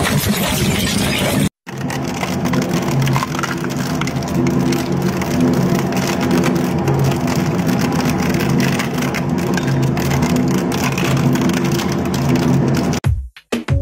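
Twin-shaft industrial shredder running under load, its hooked rotor cutters crushing and tearing a plastic crate: a steady motor hum under constant crackling and snapping.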